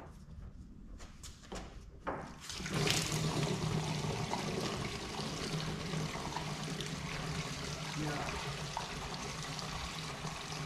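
Stale gasoline pouring in a steady stream from an AE86 Corolla's fuel-tank drain hole into a gas can, starting about two and a half seconds in after a few light clicks.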